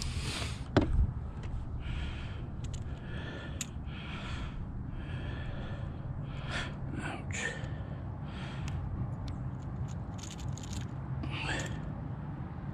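A landing net knocks down onto a bass boat's deck about a second in. Then come scraping and rustling as a hooked bass is worked loose from the net's mesh, along with the angler's breathing.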